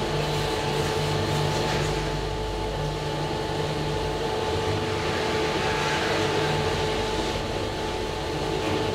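SMW traction elevator car travelling between floors, heard from inside the car: a steady hum with a constant whine over a low rumbling rush.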